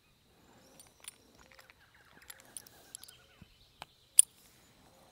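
Quiet rural ambience with faint bird calls and scattered small clicks and rustles, broken by one sharp click about four seconds in.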